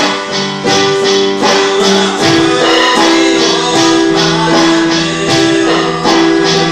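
Small band playing live: electric keyboard chords over an electronic drum kit and electric bass guitar, with a steady beat.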